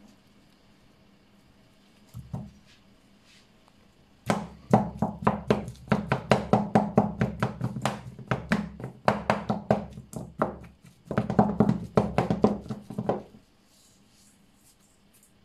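Wooden spatula mashing steamed potatoes in a stainless steel bowl: rapid knocks, about four a second, with a short break partway through, stopping a couple of seconds before the end. A single knock comes about two seconds in.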